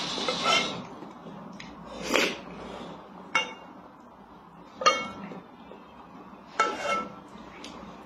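Wooden spoon knocking and scraping in a rice cooker's metal inner pot, several separate strokes a second or two apart, the pot ringing briefly after the sharper ones. Mixed with slurping and eating of rice porridge.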